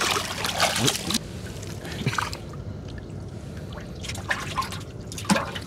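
Water dripping and splashing in short irregular bursts as a wet gill net is hauled over the side into a small boat.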